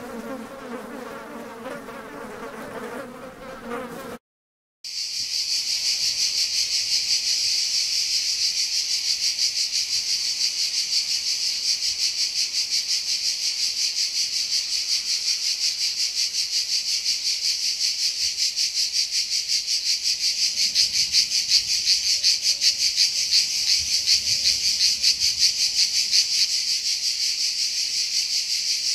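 Insects calling in a loud, steady chorus with a fast pulsing rhythm, cutting in after a short break about four seconds in. Before it comes a few seconds of a different sound made of steady tones.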